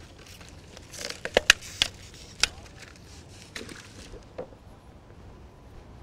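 Handling noises from a plastic pop bottle filled with liquid nitrogen being capped and lowered into a water-filled plastic trash can: a quick run of sharp clicks and knocks, then two more knocks as the can's lid goes on, then quiet.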